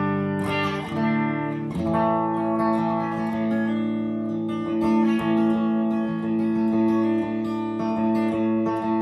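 Electric guitar, an Esquire-style partscaster with a single DiMarzio flat-pole bridge pickup, played straight into the clean normal channel of a 1975 Peavey Deuce 240T amplifier with a little reverb. Chords are strummed about once a second and left to ring.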